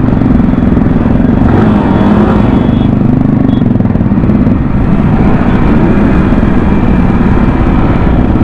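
Sport motorcycle ridden slowly in a low gear, its engine running steadily close to the microphone, with other motorcycles and scooters running just ahead.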